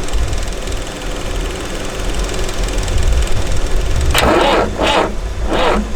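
Diesel tractor engine being cranked by its starter without catching, with three louder bursts near the end. The cranking sounds weak: the battery is down to about 10 volts and most likely shot.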